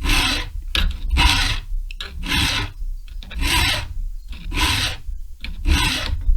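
Hand file rasping across a chainsaw chain's chrome-plated cutter in about six even strokes, roughly one a second. The cutter is being reshaped from full chisel to a milling angle.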